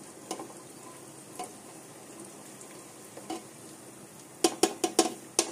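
Whole spices and dried red chillies sizzling gently in hot oil in an aluminium pressure cooker while being stirred with a spatula. A few light scrapes, then a quick run of five or so sharp knocks of the spatula against the pot near the end.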